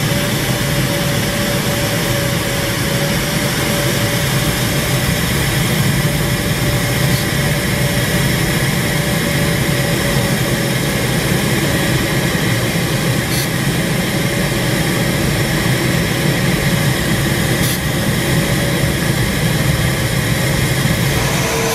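Steady rush of airflow over the canopy of a Duo Discus glider in flight, heard from inside the cockpit, with no engine sound. A faint steady tone runs underneath.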